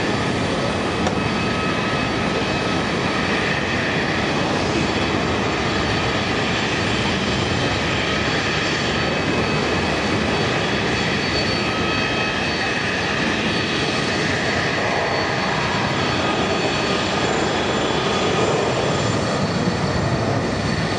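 Jet aircraft engines running steadily: a constant rush with faint high whining tones held at one pitch.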